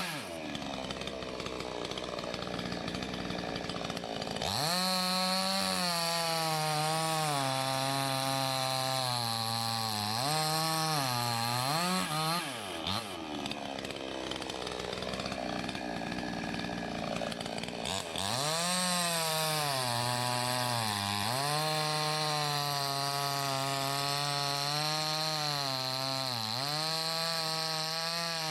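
Salem Master gas chainsaw running at high revs while bucking maple logs; the engine note sags each time the chain bites into the wood and climbs back as it clears the cut, several times over.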